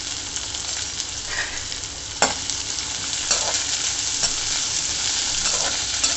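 Sliced onion and curry leaves sizzling in hot oil in a kadai as they are stirred, with light clicks and one sharper knock about two seconds in.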